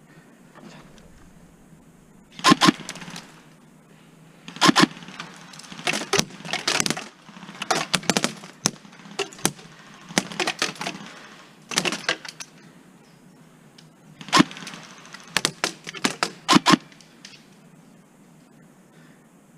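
Airsoft gun firing in short bursts and single shots, a series of sharp cracks in clusters spread through the stretch.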